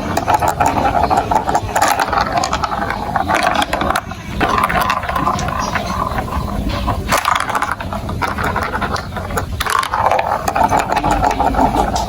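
Marbles rolling and clattering along a plastic building-block marble run, a continuous rattle with many sharp clicks as they knock against the track.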